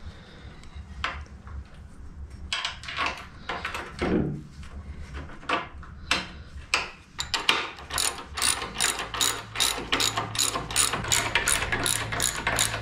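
Ratcheting spanner clicking as it tightens the nut on a locomotive horn stay. A few scattered clicks and knocks come first, then past halfway a quick, even run of about four clicks a second.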